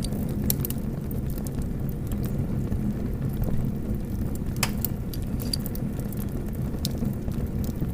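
Fire burning with a steady low rumble, scattered sharp crackles and pops, one louder pop about four and a half seconds in.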